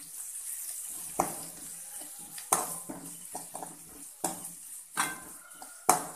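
A perforated metal spatula stirring and scraping onion, curry leaves and green chilli sautéing in oil in a metal pan, over a soft sizzle. It knocks against the pan about five times.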